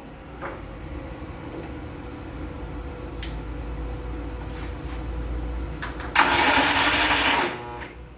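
Electric starter cranking a riding mower's Briggs & Stratton engine, primed with fuel poured into the intake to test whether the carburetor is clogged. After about six seconds comes a loud, harsh noise lasting just over a second, then it cuts off. The attempt ends with a blown fuse and the engine seized.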